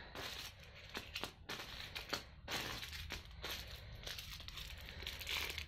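Small plastic bags of diamond-painting drills crinkling in short, irregular rustles as they are picked up and set down by hand.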